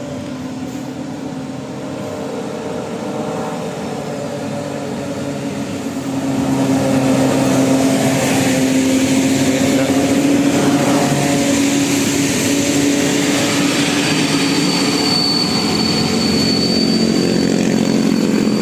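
Vehicle engine running steadily, getting louder about six seconds in, with a thin high whine joining near the end.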